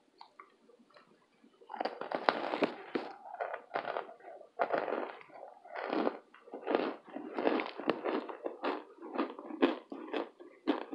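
Close-miked crunching and chewing of a burnt baked cornstarch brick, in quick irregular bites that start about two seconds in.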